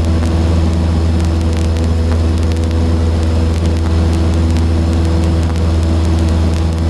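Cessna 152's four-cylinder Lycoming engine and propeller droning steadily at an unchanging pitch, with faint scattered clicks over it.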